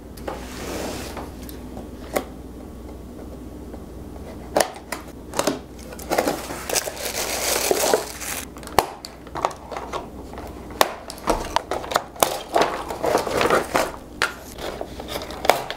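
Cardboard and plastic toy packaging being handled and opened: irregular crinkling and rustling with many sharp clicks and knocks as the blaster is taken out of its box.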